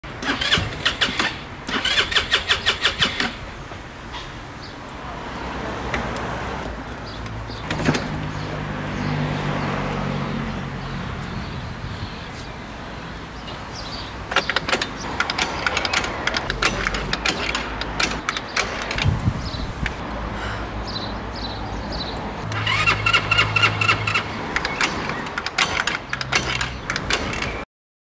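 A scooter engine being cranked over again and again in rapid, pulsing bursts, with a low engine note coming and going between tries: it will not keep running, a hard-starting scooter.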